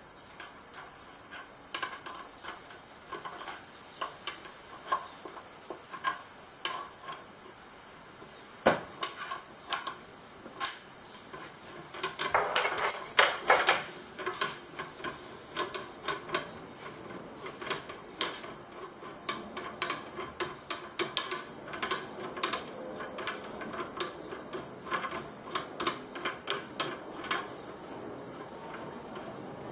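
Irregular metallic clicks and taps from small metal parts and tools being handled, with a louder knock about nine seconds in and a brief burst of rattling clatter a few seconds later.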